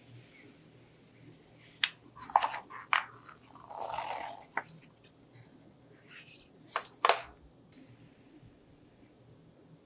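A paper instruction manual handled by gloved hands: several short, crisp paper crackles, with a longer rustle in the middle.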